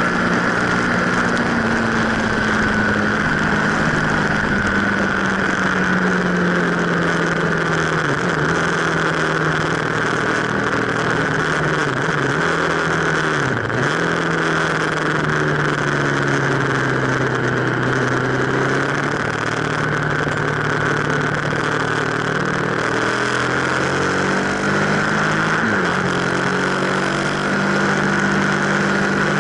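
Aprilia RSV1000 Factory's V-twin engine running at speed, recorded onboard, over a steady rush of wind. The engine note slowly sinks and rises again, with brief dips about a third, half and nine-tenths of the way through.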